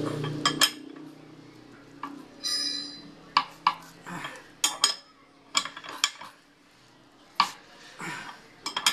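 Irregular metal clinks and knocks as a cutting disc is tightened down onto a bench grinder's arbor with its washer and nut, with one short ringing metallic ping about two and a half seconds in.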